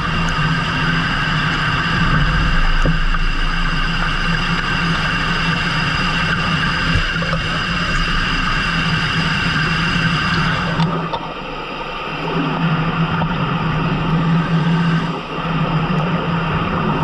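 Fishing boat engine running steadily with a continuous hum. Its sound drops briefly about eleven seconds in, then picks up again.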